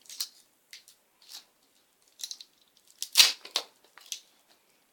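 Wrapper of a surprise egg being torn and crinkled by hand in a string of short rustles, with one louder crack a little after three seconds in.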